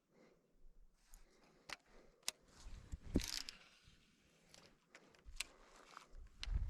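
A few sharp clicks and handling noise from fishing tackle, with wind rumbling on the microphone.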